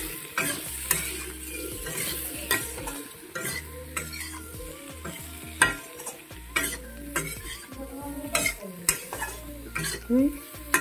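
A metal spatula stirs and scrapes pieces of kohlrabi and potato around a metal kadai, making repeated irregular clicks and scrapes against the pan. The spiced vegetables sizzle as they fry in the hot oil.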